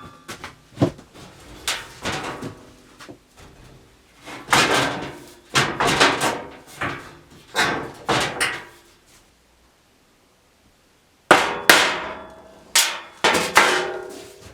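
Hammer blows on metal: a dozen or so sharp, ringing clangs in uneven groups, with a pause of about two seconds after the middle.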